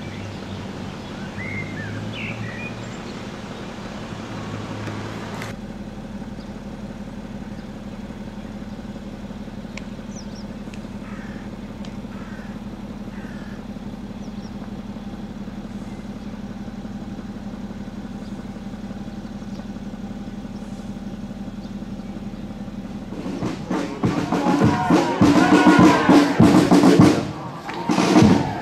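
A steady low hum with a few faint chirps. About 23 seconds in, loud marching drums start up, snare and bass drum playing a march beat.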